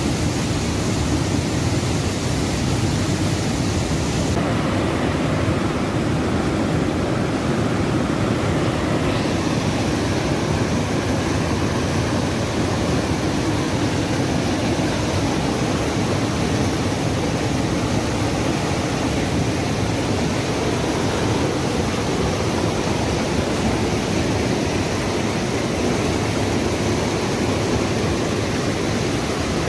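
Turbulent mountain river rapids rushing over boulders close by: a loud, steady noise of white water.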